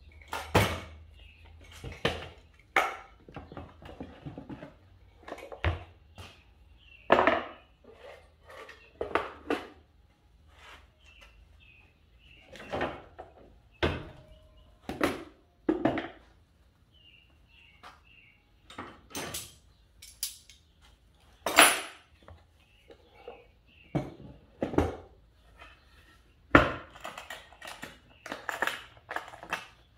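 An irregular series of knocks and clatters as a cherry-wood tool box is handled: its removable wooden tray and a cordless drill are lifted and set down, and the lid is closed and its metal latches worked.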